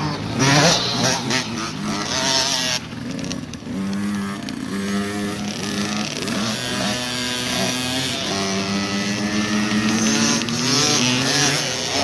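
Several small kids' pit bikes racing, their little single-cylinder engines revving up and dropping back as they shift and roll off for corners. In the first few seconds there are bursts of rushing noise.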